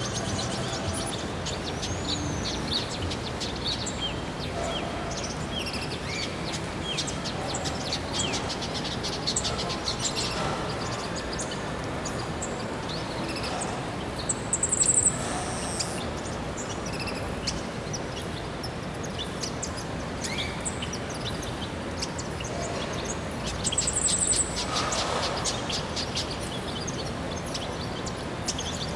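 Many small aviary birds chirping and twittering over a steady background hiss, with two louder high trills, one about halfway through and one near the end.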